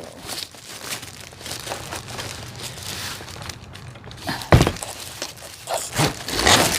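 Cardboard box being opened by hand and plastic wrapping rustling and crinkling, with a sharp knock about four and a half seconds in and another near the end.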